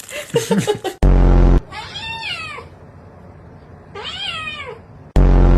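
A cat meowing twice, about two seconds apart, each meow rising briefly and then falling in pitch. Each is preceded by a loud, low buzz about half a second long: one about a second in, the other near the end.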